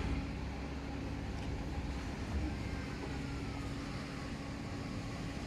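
Steady low mechanical hum over a low rumble.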